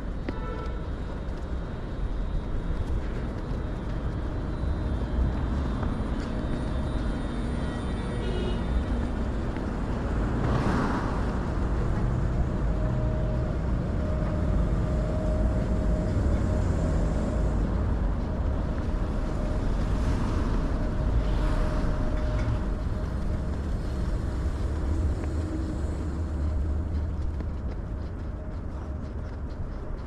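City street ambience dominated by a steady low traffic rumble from passing cars, with one louder swell about ten seconds in and a faint steady whine through the middle.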